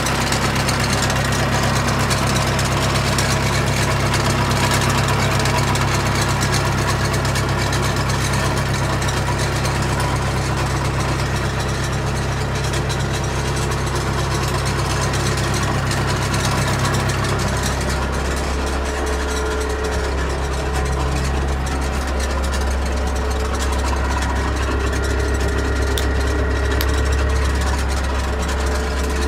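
Yanmar CT-65 crawler tractor's diesel engine running steadily, heard in and around the cab. About two-thirds of the way through, its hum drops to a lower note.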